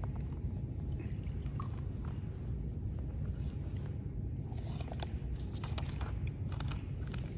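Small clicks and taps of altar vessels and objects being handled on the altar table, mostly in the second half, over a steady low rumble.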